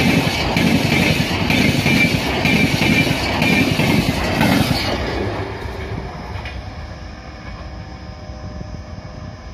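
LHB passenger coaches running past at speed, wheels clattering over the rail joints in a regular beat of about two a second. About five seconds in this gives way to a quieter, steadier rumble of a train moving away.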